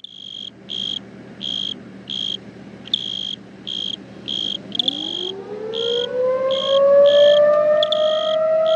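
Crickets chirping in an even pulse, about three chirps every two seconds. About halfway through, an outdoor warning siren starts up for its test, its tone rising as it winds up and then levelling off loud over the chirping.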